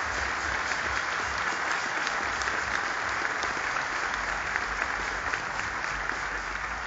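Large audience applauding steadily in a big hall, a dense wash of many hands clapping.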